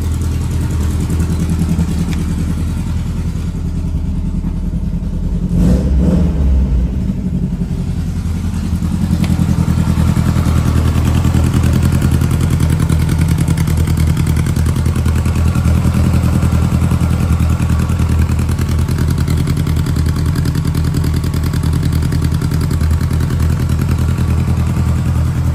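Air-cooled flat-four engine with twin carburettors in a Porsche 356 Speedster replica, idling as it warms up after a cold start. It swells in a brief rev about six seconds in, then runs a little louder and steadier from about nine seconds.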